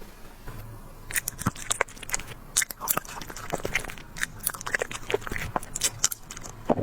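Dogs eating, with irregular sharp crunching and smacking sounds of chewing that start about a second in.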